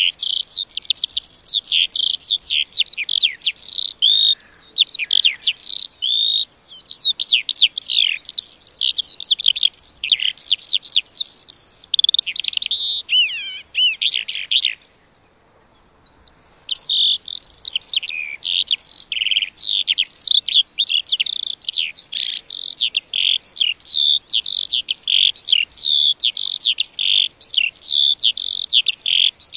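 A lark singing a long, rapid, unbroken stream of varied high-pitched twittering notes, stopping once for about a second and a half around the middle before carrying on.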